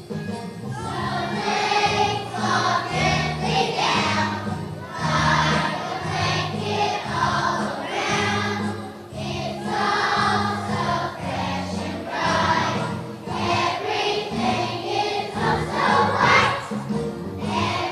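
A choir singing a song with instrumental accompaniment, the voices rising and falling in phrases over steady low notes.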